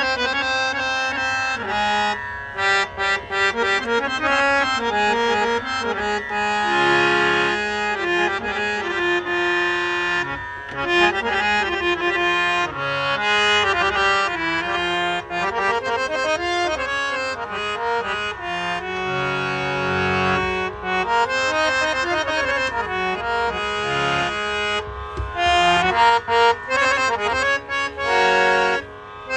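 A fully repaired harmonium plays a melody of fast, ornamented runs, its reeds sounding several notes at once. The playing breaks off briefly about a second before the end.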